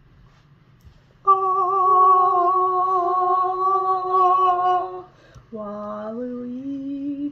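A single voice singing two long held notes in a solemn, hymn-like manner: the first held steady for almost four seconds with a slight waver, then, after a short break, a second lower note that steps up a little.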